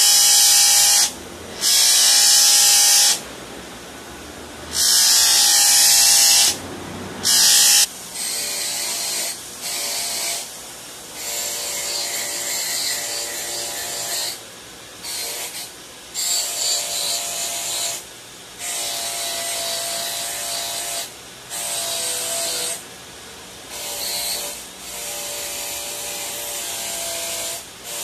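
Bench grinder running while a D2 steel straight-razor blade is pressed against its flap wheel in four loud hissing passes of one to two seconds each. From about eight seconds in the blade works against the wire wheel instead, in many shorter passes over the motor's steady whine.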